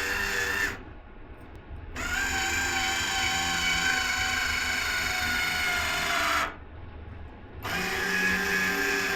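A small electric motor whining steadily in three runs, cut off twice by pauses of about a second, its pitch shifting a little from one run to the next.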